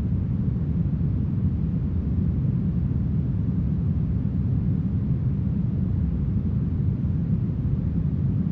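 Steady, smoothed brown noise: a deep, even hiss with little treble.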